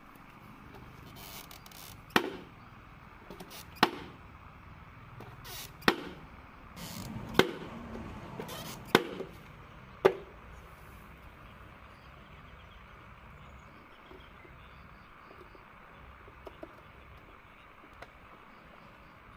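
Six sharp knocks on the hollow PVC body of a homemade model road roller, one every one and a half to two seconds over the first ten seconds. A few faint clicks follow near the end.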